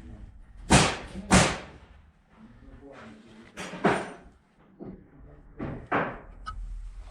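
A few sharp knocks, like hard objects struck or set down in a workshop: two loud ones about a second in, then several lighter ones later.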